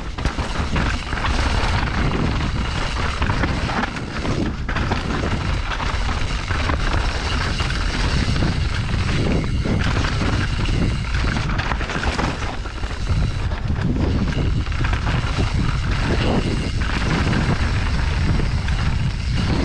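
Wind rushing loudly over the helmet or chest camera's microphone as an enduro mountain bike descends a rough dirt trail at speed. Tyres crunch over dirt and stones, and the bike knocks and rattles steadily over the rocks.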